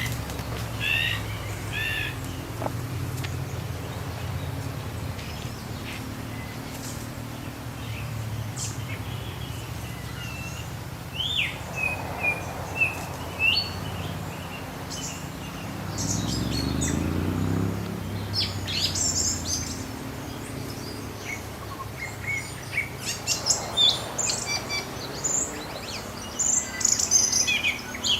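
Small birds chirping and twittering on and off, busiest near the end, over a steady low engine hum that swells and shifts in pitch about sixteen seconds in.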